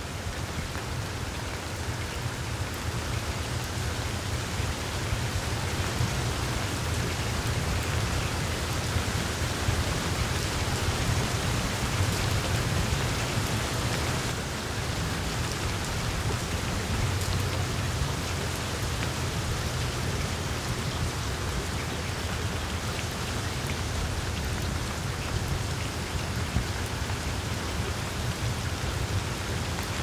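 Steady rain falling on broad leaves, a dense even hiss of countless drops, with a steady low rumble underneath.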